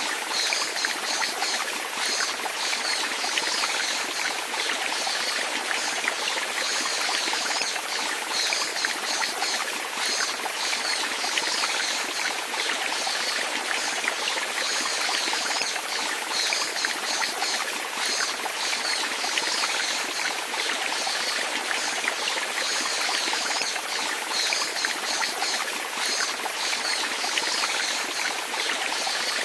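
Running water splashing and trickling steadily, like a small babbling stream, with a bright, even hiss.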